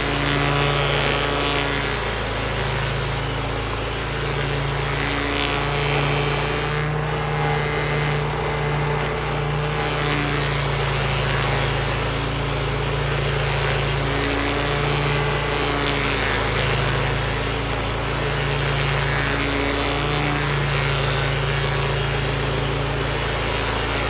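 Stump grinder running and grinding into wood: a steady engine drone over a continuous hiss of cutting, the engine's pitch shifting slightly every few seconds as the load changes.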